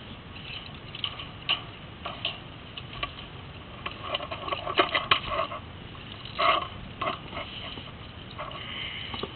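Scattered light clicks and knocks of an aluminium mounting bracket and its cable being handled on a bolted steel plate, over a low steady rumble.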